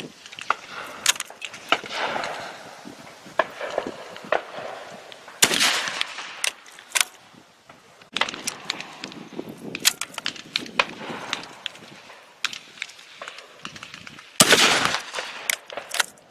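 Old Swiss bolt-action rifle being worked and fired from a bench rest: repeated short metallic clicks of the action, and two loud shots, one about five and a half seconds in and one near the end.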